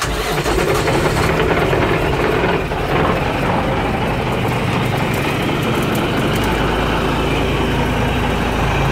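Freshly rebuilt Mack E7 inline-six diesel engine starting up abruptly and running steadily at idle.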